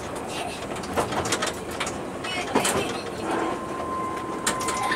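Tokyu Setagaya Line 300-series tram running, heard from the cab: a string of clicks and knocks from the wheels on the track and the car body, over a steady running noise, with a steady high whine from about three seconds in.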